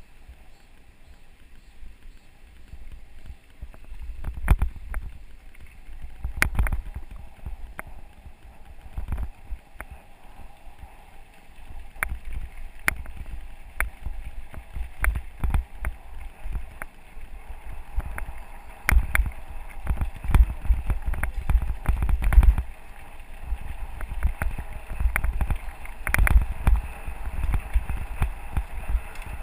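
Mountain bike riding over a rough dirt and gravel forest road: a low rumble with frequent sharp rattles and knocks as the bike jolts over the bumps, busier from about four seconds in.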